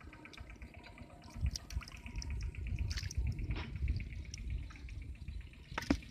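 Hands squelching and sloshing through wet mud and muddy water, with wet sucking and dripping sounds. A sharp click comes near the end.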